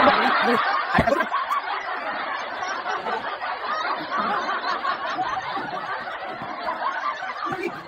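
Canned audience laughter: a dense crowd laughing together, starting sharply and breaking off suddenly near the end.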